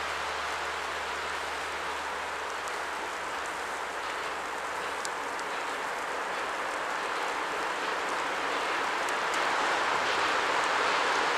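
PKP Pt47 2-8-2 steam locomotive working a train toward the listener. Its exhaust blends into a steady rushing noise that grows louder toward the end.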